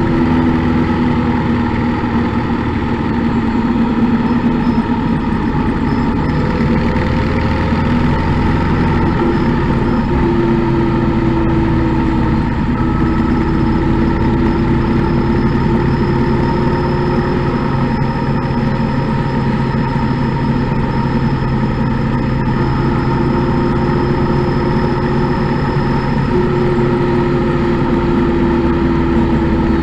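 Motorcycle engine running steadily at cruising speed, its pitch rising and falling gently as the throttle changes.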